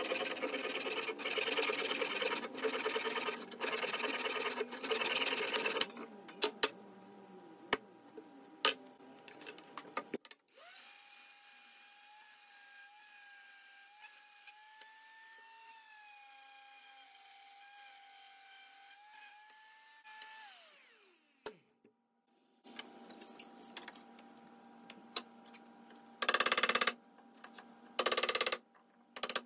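A hand saw cutting wood in quick strokes, about one a second, then an electric orbital sander running with a steady whine on the wooden mallet for about ten seconds before it winds down. Near the end, a few sharp strikes of a wooden mallet on a chisel cutting into a board.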